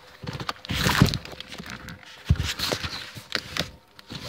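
Cardboard shipping box, plastic wrap and paper being handled and pulled open: irregular rustling, crinkling and tearing, loudest about a second in.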